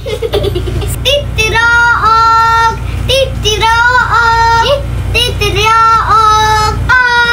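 A child's high voice singing or holding long drawn-out notes: four notes of about a second each, with short gliding notes between them.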